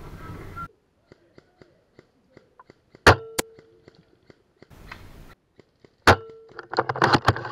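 Spring-powered bolt-action airsoft sniper rifle (JG BAR10, upgraded with an M150 spring) firing twice, about three seconds apart. Each shot is a sharp crack of the piston slamming home, followed by a short metallic ring. A clattering rattle follows the second shot, fitting the bolt being cycled.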